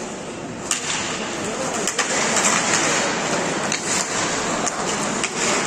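Ice hockey play after a faceoff: skate blades scraping and hissing on the ice, with several sharp clacks of sticks and puck.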